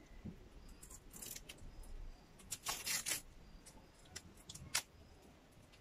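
A roll of green floral tape being unwound and worked by hand onto a plastic headband: a handful of short, faint scratchy rasps, most of them around three seconds in, with another just before five seconds.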